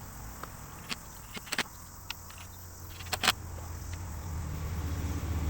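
A few short sharp clicks and taps of plastic and metal parts being handled, the loudest about three seconds in. A low steady engine hum grows louder near the end.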